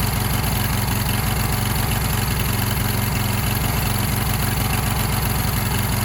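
Generator engine running steadily on biogas (methane) while it warms up, an even, fast low pulsing.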